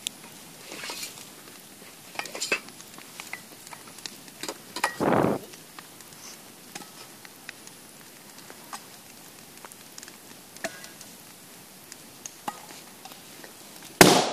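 Brush bonfire crackling and popping, with a brief rush of noise about five seconds in. Near the end an aerosol can in the fire bursts with a single sharp, loud bang.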